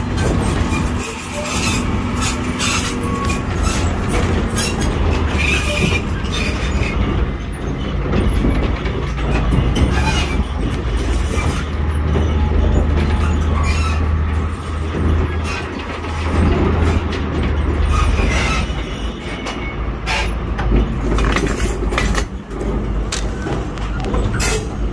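1928 Plymouth HLC-2 25-ton locomotive rolling slowly along jointed track and over a switch. Its engine gives a steady low drone throughout, under frequent clanks and clicks from the wheels and rail joints.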